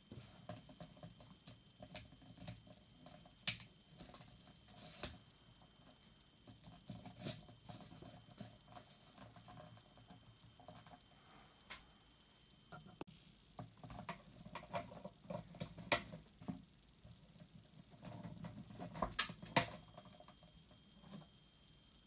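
Close handling noise of an angled GK cable connector: fingers rubbing and scraping its plastic sleeve and metal shell as the parts are pushed together and turned, with scattered small clicks and a few sharper ones.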